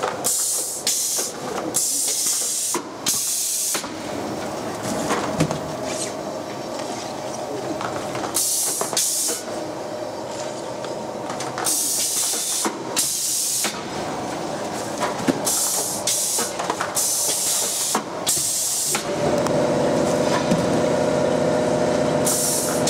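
Cigarette pack wrapping machine running with a constant mechanical clatter, broken by repeated loud hissing bursts. Near the end the hissing stops and a steady hum takes over.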